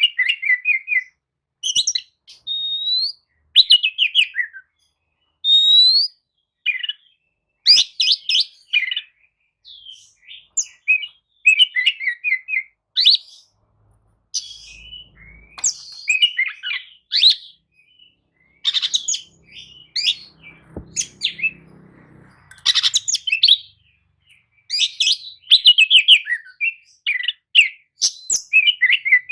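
Oriental magpie-robin (kacer) singing a lively, varied song: rapid chirps and trills broken by short gaps, with a few clear rising whistles.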